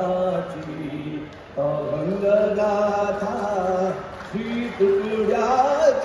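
A man's voice singing in long, chant-like held notes that slide in pitch, with short breaks about a second and a half in and again about four seconds in.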